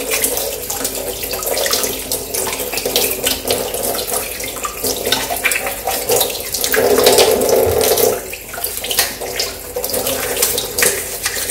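Kitchen tap running in a thin stream into a stainless steel sink and splashing over hands as a baby bottle nipple is rinsed under it. The splashing gets louder about seven seconds in.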